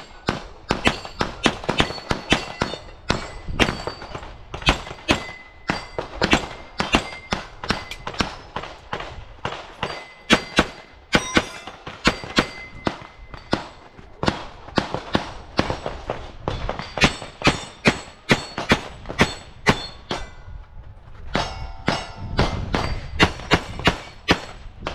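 Rapid pistol shots, two to three a second, many of them followed by the ringing clang of struck steel targets, with a short lull about twenty seconds in.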